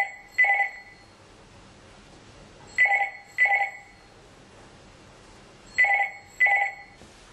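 Telephone ringing in a double-ring pattern: three pairs of short rings, each pair about three seconds apart.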